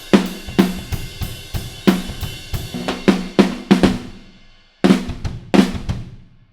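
Drum kit groove built around a 14x7 flame maple stave snare with maple hoops: snare, kick, hi-hat and cymbal strokes in a steady beat. The beat dies away about four seconds in, then two final accented hits with cymbals ring out and stop.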